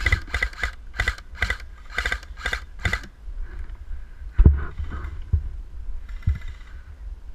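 Airsoft rifle firing a string of single shots, about a dozen sharp cracks in quick groups over three seconds. A dull thump follows about four and a half seconds in.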